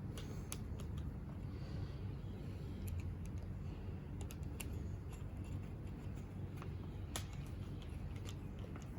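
Irregular light clicks and taps of hand tools and small trimmer parts being handled during reassembly, over a steady low hum.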